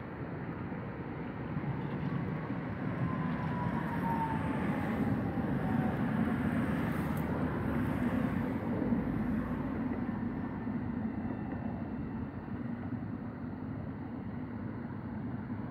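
A vehicle passing by: a rush of road noise that swells and fades, with a faint falling whine about three to six seconds in.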